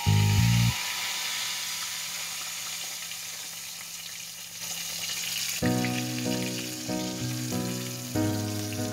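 Flour-coated fish deep-frying in a pot of hot oil, a steady sizzle. Background music stops just under a second in and comes back a little past halfway.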